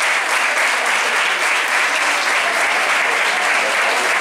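An audience applauding: many hands clapping together in a dense, steady, loud patter.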